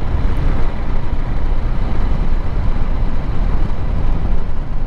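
KTM 390 Adventure motorcycle ridden at a steady pace over a loose gravel road: a steady rush of wind, tyre and single-cylinder engine noise.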